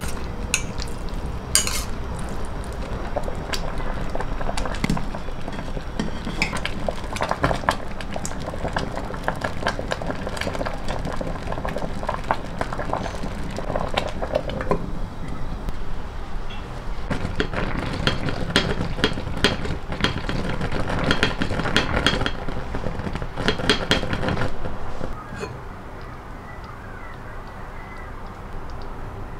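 A metal spoon clinks and scrapes against a steel bowl and the pot as chopped lean meat is tipped into boiling rice porridge and stirred, over the porridge bubbling. The clatter stops about 25 seconds in, leaving a quieter steady sound of the simmering pot.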